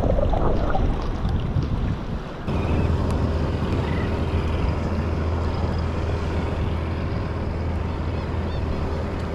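Wind on the microphone and sea water lapping around a kayak. The sound changes abruptly about two and a half seconds in, from a rougher rumble to an even rush with a steady low hum.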